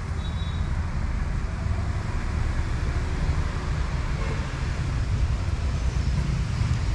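Wind buffeting the microphone: a steady, uneven low rumble with a hiss above it.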